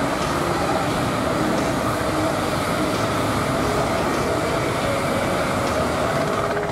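Steady rolling noise of an ICE high-speed train's carriages passing close by on the rails, easing off as the last car goes past at the very end.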